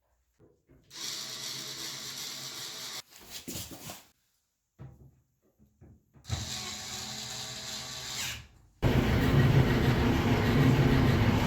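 A power driver runs in two bursts of about two seconds each. Near the end, a much louder steady running noise starts suddenly: the Samsung dryer drum turning on its support rollers.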